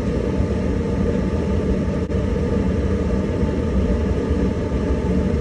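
Clothes dryer running: a steady rumble from the drum and its motor.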